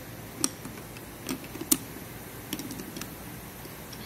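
A wrench clicking against a nut on a Bridgeport cradle assembly's gear shaft as it is fitted and turned to run the locking nut down: a handful of sharp, irregularly spaced metallic clicks, the loudest about halfway through.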